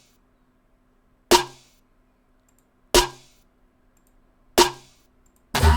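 A layered electronic snare sample for a dubstep track, a plain snare stacked with a steeply pitched-down copy, played back alone: three sharp hits about a second and a half apart, each with a short pitched ring. Near the end a full dubstep beat with heavy bass starts playing.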